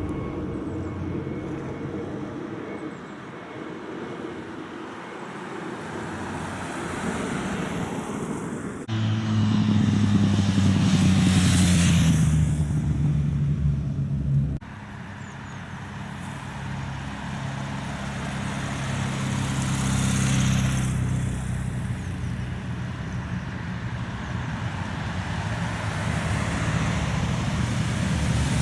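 Motor vehicles passing on a road. About a third of the way in, one passes loudly, its engine pitch falling. Near the end, the engines of an approaching column of police motorcycles grow louder.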